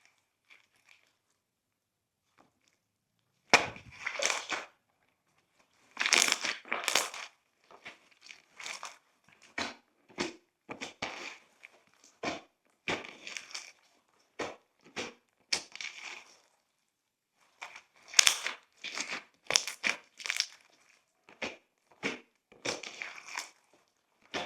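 Glossy slime being squished and pressed by hand, giving irregular bursts of wet crackling and popping. It starts a few seconds in.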